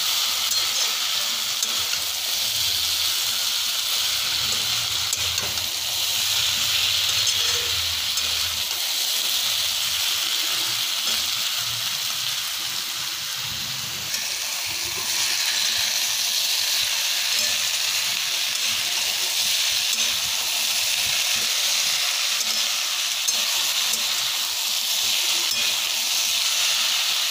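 Potato and cauliflower pieces sizzling steadily as they fry in oil in a pan, stirred now and then with a spatula.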